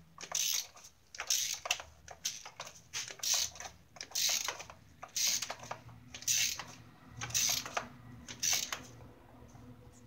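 Ratchet wrench clicking in short back-strokes, roughly one a second, as a spark plug is tightened into the cylinder head; the strokes stop near the end.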